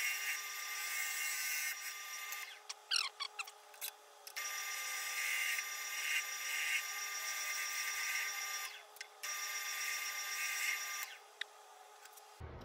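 Wood lathe running with a steady whine while a bowl gouge shaves the spinning bowl blank, thought to be black locust: three long cutting passes of hissing shavings, with short pauses and a few sharp clicks between them.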